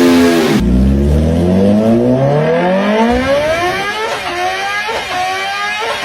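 Superbike engine revving: the pitch falls, then after an abrupt cut about half a second in, another engine winds up with a long, steady rise in pitch. In the second half the pitch climbs in short steps broken by quick dips about once a second.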